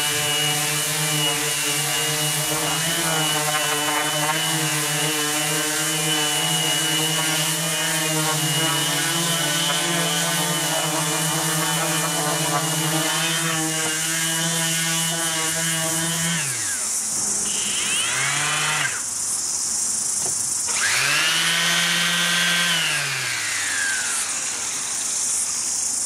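Cordless random orbit sander running steadily with a motor hum and a hiss of 120-grit paper on hardwood decking. About two thirds of the way in it is switched off and its pitch falls away. A sander is then run up twice briefly and switched off, the second time winding down more slowly.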